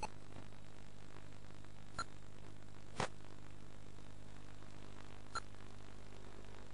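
Steady electrical hum and hiss of the FPV video link's audio channel, broken by four short sharp clicks, the loudest about three seconds in.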